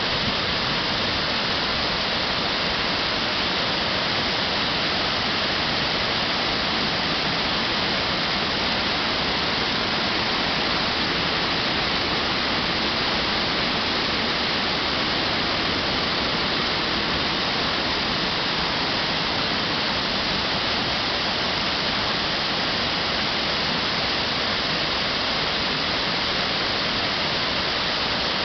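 Water spilling over a concrete dam weir and crashing into the pool below, a loud, steady rush of falling water.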